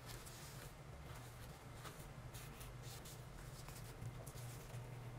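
Faint rustling and rubbing of fabric as hands fold a mask's edge down over a taped-in nose wire and press it flat on a cutting mat, over a low steady hum.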